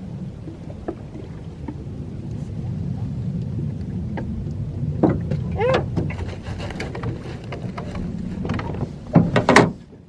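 Small boat's motor running steadily with a low hum, with short voice sounds over it about halfway through and a louder one near the end.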